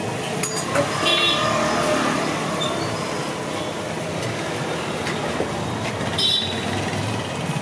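Steady street noise with traffic, and short high metallic clinks about a second in and again about six seconds in.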